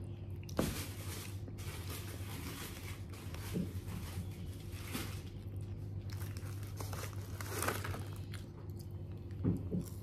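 Someone eating crispy fried chicken close to the microphone: chewing and crunching at irregular moments, with paper wrappers crinkling, over a steady low hum.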